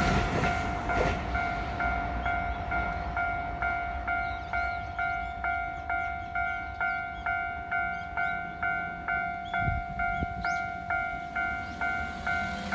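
Japanese level-crossing warning bell ringing, an evenly repeated electronic ding about two and a half times a second. The noise of a passing Keio Line train dies away in the first second.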